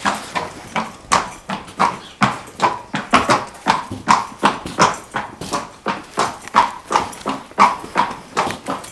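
A horse's hooves striking the ground in a steady, even rhythm, about two to three beats a second, as it moves around on the lunge.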